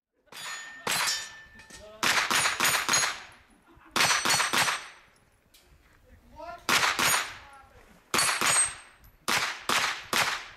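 Pistol-caliber carbine fired in quick strings of three or four shots, with steel targets ringing on the hits.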